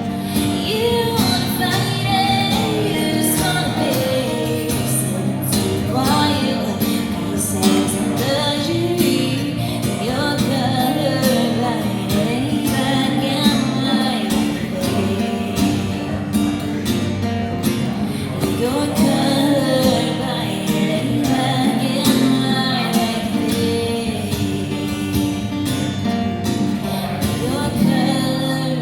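A woman singing a song with instrumental accompaniment, performed live.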